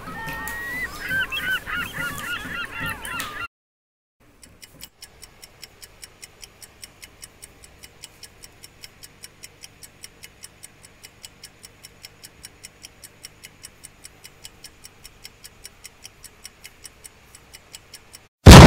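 Wavering, honk-like calls for the first three and a half seconds, cut off abruptly. After a brief silence, a steady fast ticking, about three to four ticks a second, like a clock, runs on until loud music cuts in at the very end.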